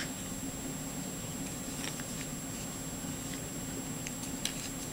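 A few faint, scattered clicks from handling the padlock and its small metal tools, with a sharper click at the very start, over a steady low hum.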